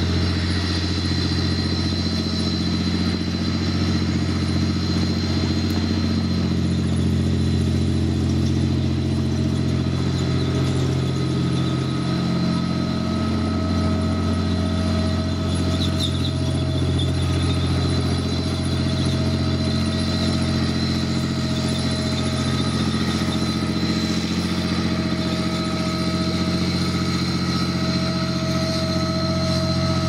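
Challenger armoured recovery vehicle's V12 diesel engine running steadily as the 80-ton tracked vehicle drives slowly past. A few thin, steady high-pitched whines sit over the deep engine note.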